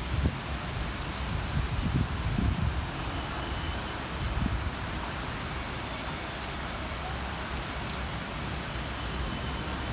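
Heavy rain falling steadily on trees and paved ground, an even hiss, with a few low rumbles in the first couple of seconds.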